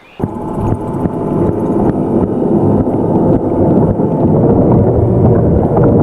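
Aiper Seagull Pro robotic pool cleaner running on the pool floor, heard underwater as a loud, dense, muffled rumble with scattered clicks. It starts suddenly a moment in, then holds steady.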